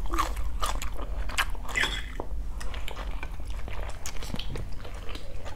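Close-miked eating: a person chewing food, with small irregular clicks and taps of chopsticks and a fork on dishes, over a low steady hum.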